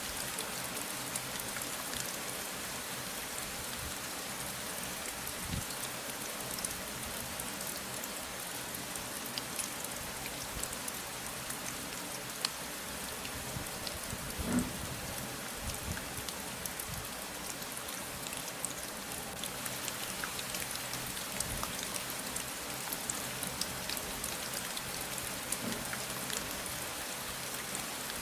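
Steady rain falling, an even hiss with many small drop taps and a few heavier drops landing now and then.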